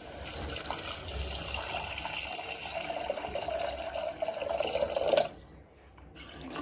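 Water being poured steadily into a pressure cooker over the sautéed chicken paste, with a steady filling tone, stopping about five seconds in.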